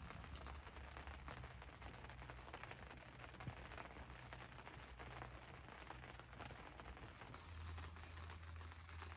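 Rain pattering on the fabric of a tent, heard from inside: a faint, dense, steady crackle of drops, with a low hum underneath.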